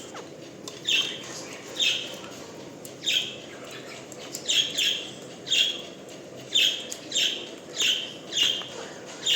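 Pet parrot chirping repeatedly: short high calls, about one a second, some coming in quick pairs.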